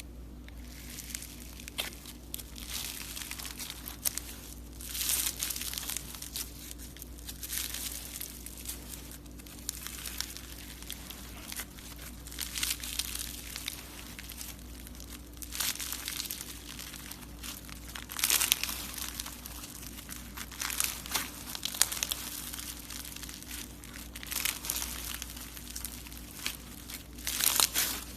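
Slime being squeezed, poked and stretched by hand, giving irregular crunchy, crackly bursts. A faint steady low hum runs underneath.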